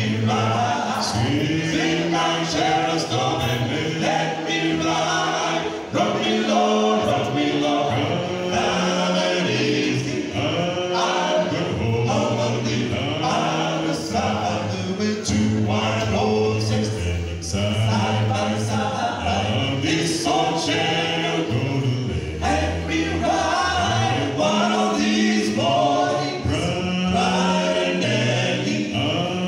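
Male a cappella vocal group of five singing a gospel song in close harmony through microphones, with a low bass line held under the upper voices.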